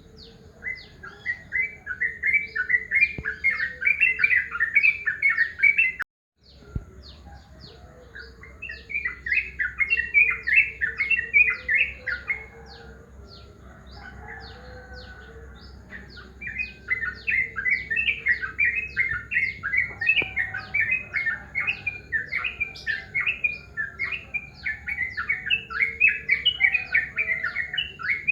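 Yellow-vented bulbul (trucukan) singing: three bursts of rapid, bubbly chattering, each lasting several seconds, over a steady series of short high chips repeating a few times a second. The sound cuts out briefly about six seconds in.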